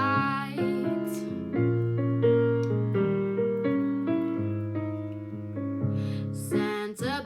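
Background music: a Christmas song on electric piano playing a run of chords, with a woman's singing voice heard briefly at the start and again near the end.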